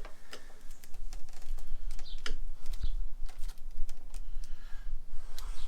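Irregular small metallic clicks and taps of a hand screwdriver working the screws that tighten a motorcycle taillight down flush.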